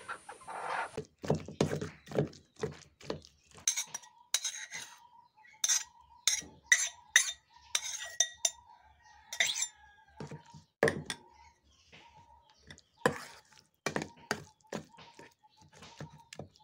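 Stainless steel spoon and jar clinking and scraping against a steel bowl in short, irregular knocks, as mashed brinjal (eggplant) bharta is scraped out and stirred.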